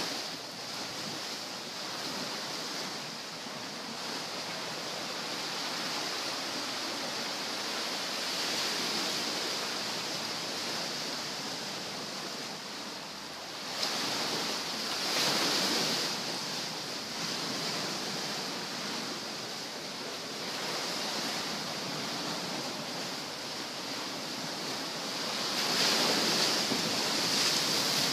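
Sea surf washing onto the shore: a steady rush of breaking water that swells louder about halfway through and again near the end.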